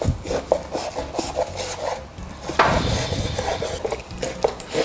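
Cleaver slicing through raw pork belly on a wooden cutting board: the blade scrapes through the meat with a few light knocks on the board. The cutting is louder from about halfway through.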